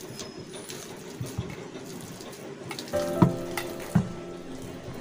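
Hands squishing and mashing boiled potato in a steel bowl, a soft wet kneading sound, with a couple of sharp knocks against the bowl about three and four seconds in.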